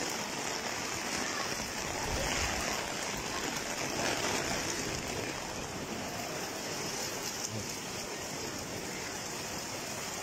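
Steady rain falling onto wet pavement, an even hiss of downpour and splashing.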